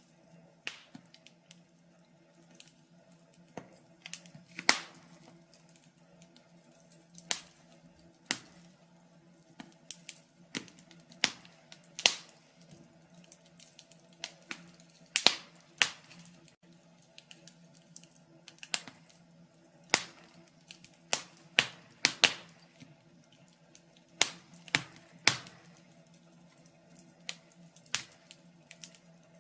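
Log fire crackling: irregular sharp pops and snaps, sometimes single and sometimes in quick clusters, over a faint steady low hum.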